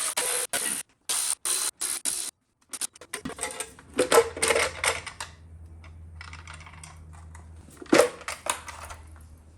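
Metal clicking and clinking from socket-wrench work on the valve cover bolts of an LT1 small-block V8. A few short, choppy stretches come in the first two seconds, then louder clinks and clatter about four seconds in and again near eight seconds.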